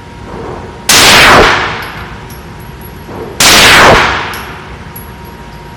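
Two 9mm pistol shots from a Glock 19 Gen4 firing Federal 115-grain rounds, about two and a half seconds apart, each very loud with a short ringing tail.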